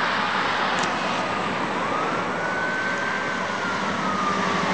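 Fire department emergency vehicle's siren wailing, one slow rise and fall in pitch, over steady road traffic noise.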